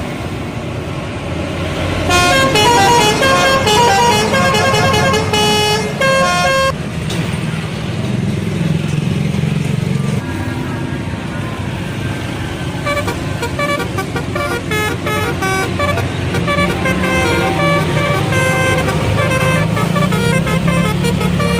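Bus telolet horn playing a rapid multi-note tune in two bouts: one about two seconds in lasting around five seconds, and another starting near two-thirds of the way through. Between and under the bouts the bus's engine runs, louder for a stretch in the middle.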